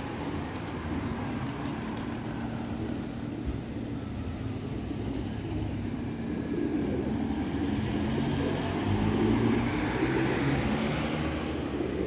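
Road traffic: vehicle engines rumbling steadily with slowly shifting hum, swelling as a vehicle passes about eight to ten seconds in.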